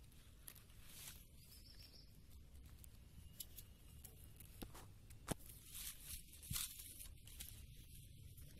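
Near silence: faint background hiss and low rumble with a few soft clicks, one sharper click a little past the middle.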